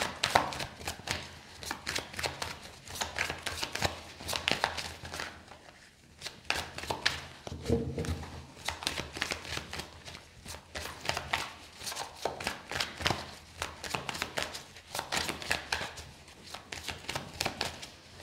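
A tarot deck being shuffled by hand: a continuous run of quick, irregular card clicks and slaps, with brief pauses.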